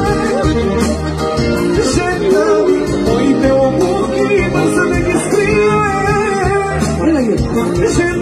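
A man singing through a handheld microphone and sound system over loud amplified backing music with sustained bass notes.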